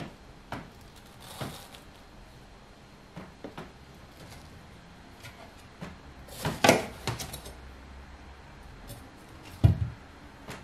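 Large kitchen knife cutting a seedless watermelon on a stainless steel tray: scattered crunches and clicks of the blade through the rind and against the metal tray, loudest a little past the middle, with a low thump near the end.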